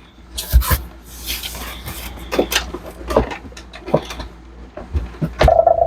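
Objects being handled and set down while packing: scattered knocks and clacks with a short rustle about a second in and a sharp knock near the end.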